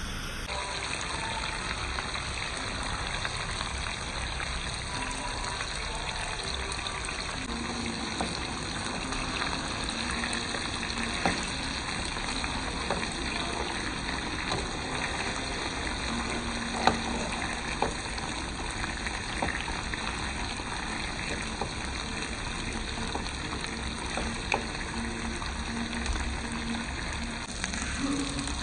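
Masala-coated fish steaks shallow-frying in oil in a pan: a steady sizzle with a few sharp pops of spitting oil.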